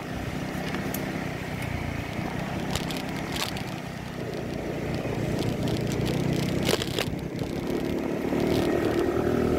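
Small motorcycle engine running while riding over a rough, cracked concrete road, with a few sharp knocks and rattles from bumps. The engine gets louder and higher near the end.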